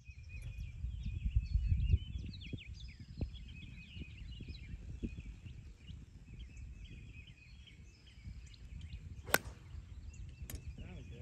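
A single sharp crack about nine seconds in as an 8-iron strikes a golf ball off the tee. Short bird chirps run throughout, over a low rumble in the first couple of seconds.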